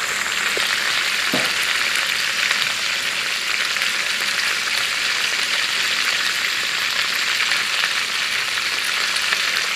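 Chicken pieces sizzling in an aluminium pot, a steady frying hiss with no breaks. The chicken is being seared in the pot before the soup is made, to cook off its raw smell.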